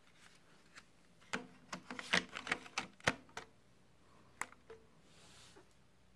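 Sharp mechanical clicks and clacks from handling a Panasonic RD95 car audio unit: a quick run of them about a second in, and one or two more near the end.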